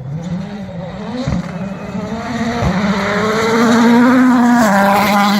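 A rally car at full throttle comes up to and past the listener. Its engine note climbs through the gears with short dips at the upshifts, about a second and a half apart, and is loudest around four seconds in.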